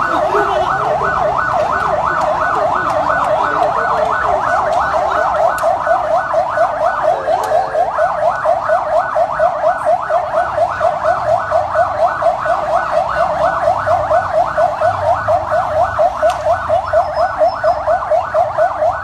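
Police siren sounding a fast yelp: rising sweeps repeat about four times a second without a break, pulsing more strongly from about six seconds in.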